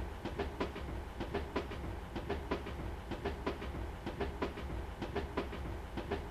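The closing bars of an instrumental music track, down to a rhythmic clicking percussion at about four beats a second over a low steady hum.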